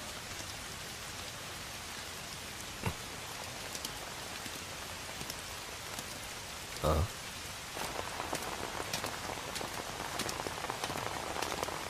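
Steady rain falling on pavement, with a short knock about three seconds in and a louder, low thud around seven seconds. The patter of drops grows denser and a little louder over the last few seconds.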